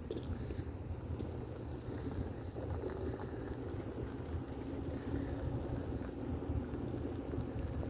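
Wind buffeting the microphone as a steady low rumble, with a faint droning hum running under it from about a third of the way in.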